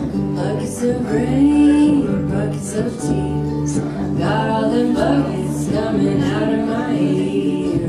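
Live acoustic folk music: voices singing over strummed acoustic guitar and plucked strings.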